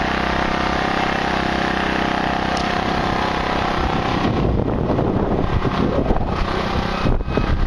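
An engine running steadily at an even pitch for about four seconds, then giving way to wind buffeting the microphone.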